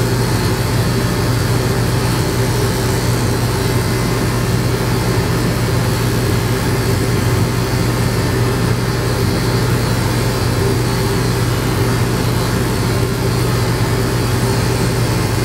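Electric grooming clippers running with a steady hum as they trim the coat on a small dog's head and face.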